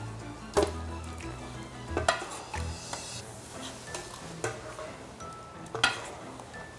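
Metal spatula stirring and scraping dakgalbi, chicken with udon noodles, on a large cast-iron griddle pan as it sizzles, with a few sharp clanks of metal against the pan.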